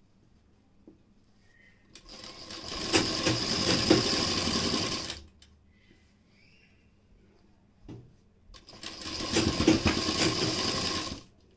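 Sewing machine stitching the pocket seam of a kurti in two runs of about three seconds each, with a pause between. Each run picks up speed over its first second and stops abruptly.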